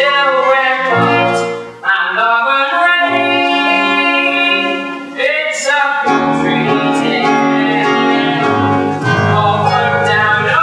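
Musical-theatre song: voices singing long held notes over instrumental accompaniment, with the bass line dropping lower about halfway through.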